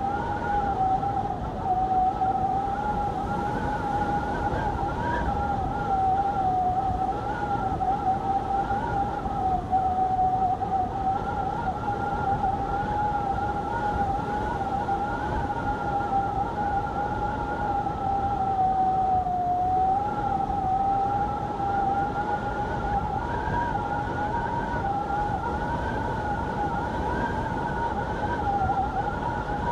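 Strong wind whistling in a steady, slightly wavering tone, as it does through a gap or over an edge, over a constant rush of wind noise.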